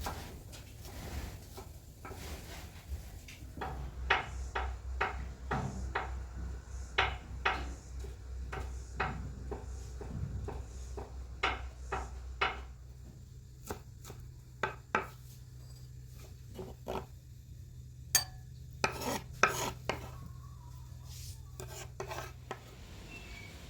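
Kitchen utensils knocking on wood and dishes: a run of sharp knocks about two a second, then a few scattered clatters near the end.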